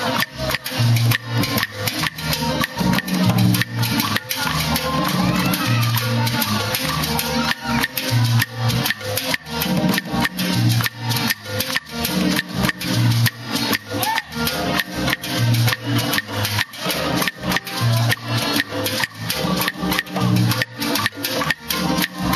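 Live salsa descarga: hand-played congas and other Latin percussion keep up a dense, driving rhythm over a repeating bass line.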